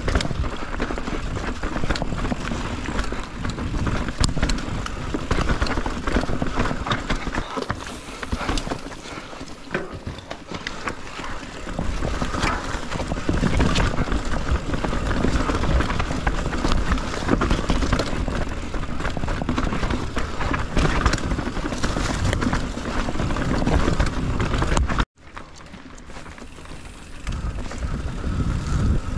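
Mountain bike rolling over a rough dirt and rock trail: tyres on dirt, with the chain and frame rattling and wind rumbling on the camera microphone. The sound cuts out suddenly about 25 seconds in, then comes back quieter for a couple of seconds.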